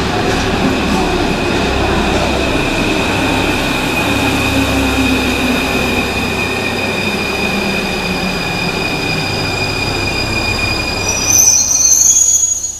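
Paris Métro Line 5 MF 01 steel-wheeled train braking into the platform, running with a rumble and a steady high squeal from its wheels and brakes. Near the end a short loud hiss of air marks it coming to a stop.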